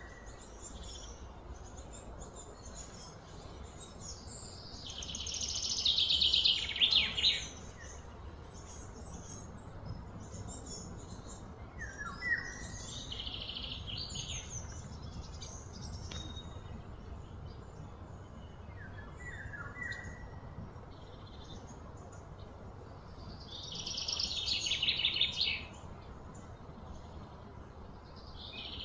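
Birds chirping outdoors with short, falling calls, while three times a loud, high buzzing call swells over about two seconds and then cuts off abruptly, over a steady low background hum.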